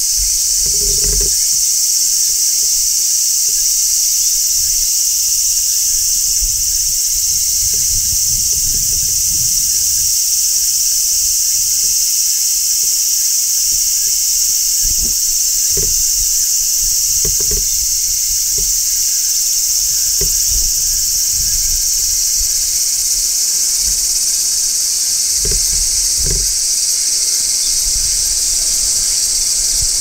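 Large brown cicadas shrilling: a continuous, even, high-pitched sizzle that holds steady without a break. A few faint low thuds sound now and then beneath it.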